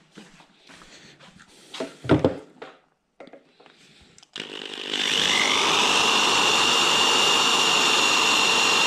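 Black & Decker corded electric drill spinning up about halfway through and running at a steady speed with a constant whine as it bores a hole in a tube. Before it, light handling clatter and a single knock.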